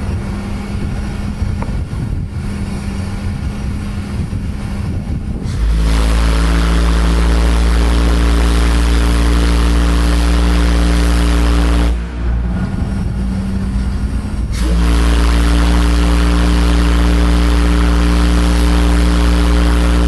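Homemade steel organ-pipe steam whistle, 12 inches in diameter with a 60-inch bell, blown in two long blasts of an amazingly deep note: the first from about six seconds in for about six seconds, the second from about fifteen seconds in after a short break. Before the first blast there is a steady low hum.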